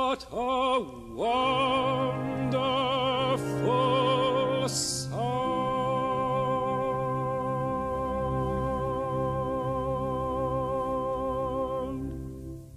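Closing bars of an orchestral piece: a few short notes with strong vibrato, then one long held final chord over a low bass note that fades out near the end.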